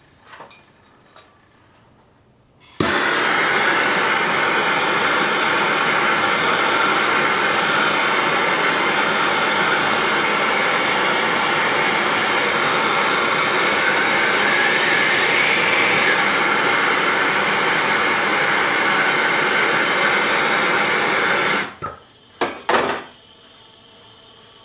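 Handheld gas soldering torch burning on a copper pipe joint: a loud, steady hissing flame that starts abruptly about three seconds in and cuts off sharply about nineteen seconds later. A couple of sharp knocks follow.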